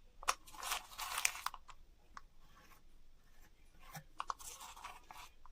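Handling noises of craft materials: short, irregular crinkling and scraping sounds in two bursts, one near the start and one about four seconds in.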